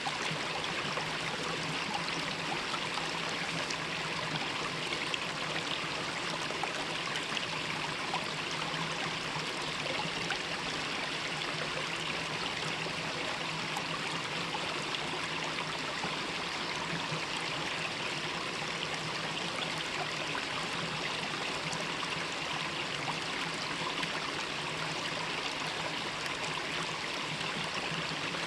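Mountain valley stream flowing, a steady, even rush of water that does not change.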